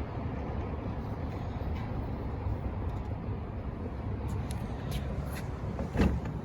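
Penncrest 100 box fan running on low: a steady rush of air over a low hum, with the back grill vibrating. The owner puts the shaking down to the blade needing balancing.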